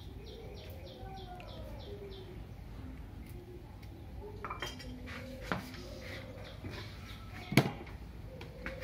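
Kitchen dishes and utensils clinking, with a few light knocks from about halfway through and one sharp clack near the end. Early on a bird chirps about seven times in a quick, even series.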